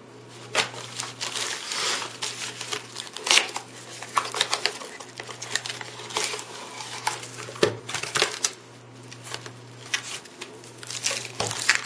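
Hands handling and unfolding a cardboard packaging insert: irregular rustling, scraping and tapping of cardboard, with a few sharper clicks.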